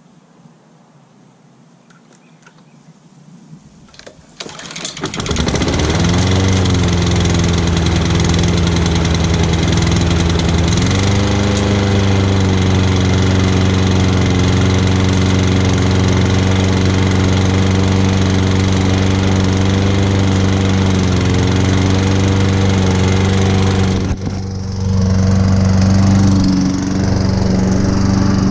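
A Craftsman walk-behind lawn mower's Honda GCV160 four-stroke engine starts about four seconds in, then runs steadily at a constant speed, its pitch stepping up slightly a few seconds after starting.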